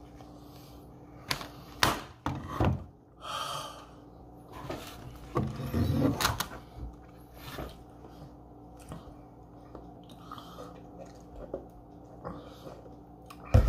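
Handling noises at a wooden table: scattered knocks and thumps, a short rustle about three seconds in, a cluster of louder knocks around six seconds in, and a loud thump near the end.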